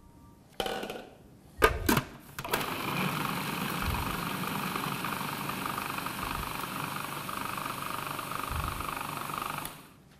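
Electric food processor running steadily for about seven seconds, chopping pumpkin and cauliflower pieces into coarse crumbs, then switched off near the end. It is preceded by a few sharp knocks as the pieces go into the plastic bowl.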